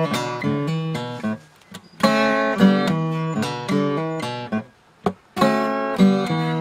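Acoustic guitar playing a blues figure: ringing strummed chords in repeated phrases, with short pauses about two seconds in and again near five seconds.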